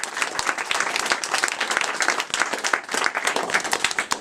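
A small audience applauding, many hands clapping fast and steadily, dying away at the very end.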